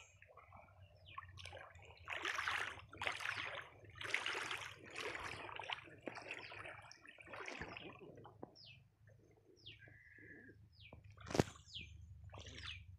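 Riverside sound: wind buffeting the microphone with a steady low rumble, water splashing and sloshing in several surges in the first half, then short high bird chirps in the second half, with one sharp click near the end.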